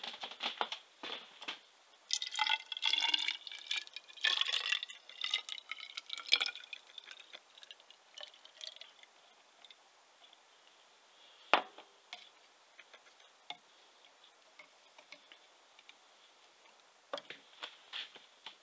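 Fruit wine being poured into a tall plastic hydrometer test jar for a few seconds, with a ringing splash. A single sharp knock follows about halfway through, and a few light clicks come near the end.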